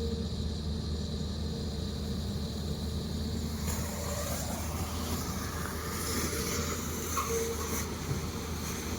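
Excavator's diesel engine running with a steady low drone. About four seconds in, a hissing, rougher noise joins it.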